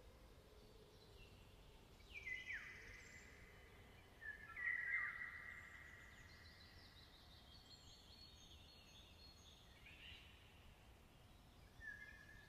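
Songbirds singing faintly, several short phrases of falling notes, the loudest about two and five seconds in, over a faint outdoor hiss.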